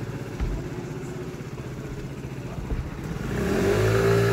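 A motor vehicle's engine running with a steady pulsing hum. Near the end a vehicle passes close, growing louder, its pitch rising and then falling.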